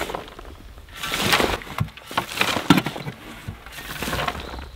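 A round-point shovel scooping compost out of a wheelbarrow and tossing it into a wooden raised bed: repeated scrapes of the blade and rushes of falling soil, with a few short knocks.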